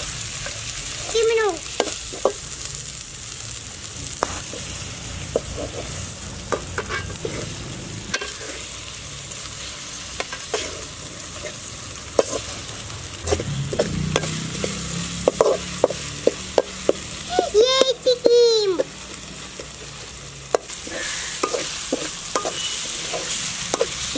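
Chopped tomatoes and onions sizzling in hot oil in an aluminium kadai, being frying soft, while a perforated metal spatula stirs them with repeated scrapes and clicks against the pan. A bird calls briefly about a second in, and again about three-quarters of the way through.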